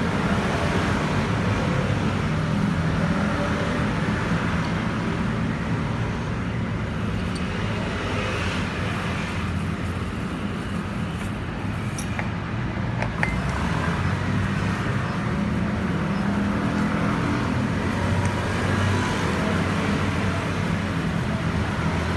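Steady rumble of road traffic, rising and falling slightly, with two faint clicks about halfway through.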